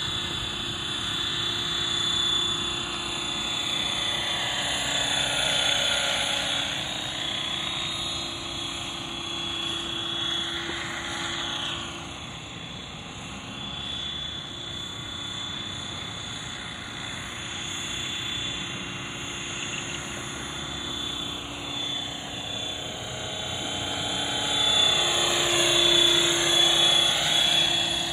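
Radio-controlled MD500 scale model helicopter in flight: a steady whine of its motor and rotors. The sound sweeps and phases up and down as the helicopter moves nearer and farther, and it is loudest near the end as it passes close by.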